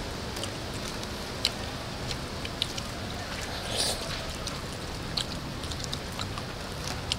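People eating with their hands: scattered small clicks and smacks of chewing and handling food, with a brief rustle just under four seconds in, over a steady low background noise.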